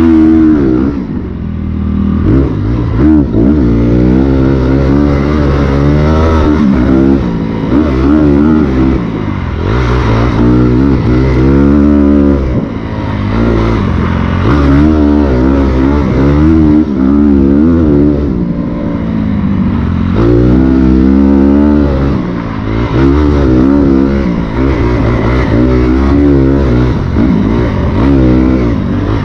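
Dirt bike engine ridden hard on a trail, the pitch climbing and dropping over and over as the throttle is opened and closed and the bike shifts gears.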